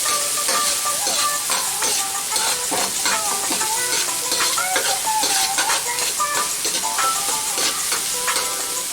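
Sliced onions sizzling and frying in hot cooking oil in a pan while being stirred, with a steady crackling hiss.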